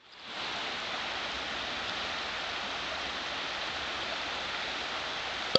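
Steady rush of flowing stream water, fading in over the first half second.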